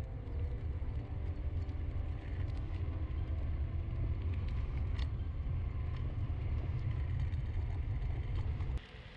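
Hover-1 Dynamo electric scooter riding at speed: a low, steady rumble of its air-filled tyres on asphalt and wind on the rider's camera microphone. It cuts off suddenly near the end.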